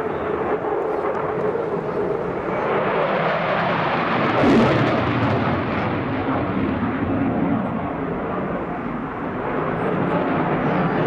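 Eurofighter Typhoon's twin EJ200 turbofan jet engines heard from below as a steady, loud jet rush, peaking for a moment about four and a half seconds in.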